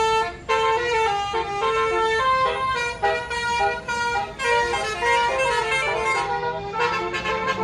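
Bus telolet horn, a Basuri multi-trumpet electric horn, playing a quick melody of stepping notes almost without a break. A low tone rises underneath in the last couple of seconds.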